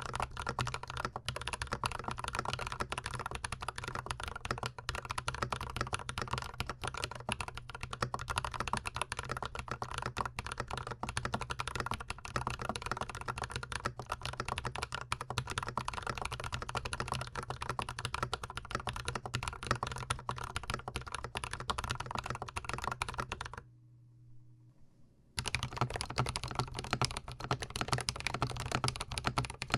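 Fast typing on a GMMK Pro gasket-mount mechanical keyboard fitted with Glorious Panda tactile switches: a dense, continuous run of keystroke clacks, miked very close to the keys. The typing stops for under two seconds about three-quarters of the way through, then starts again.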